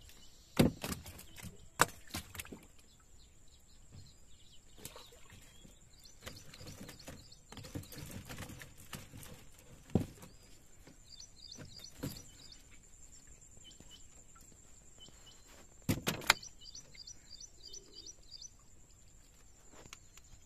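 Birds chirping in short trills, with a few sharp knocks; the loudest knock comes about half a second in.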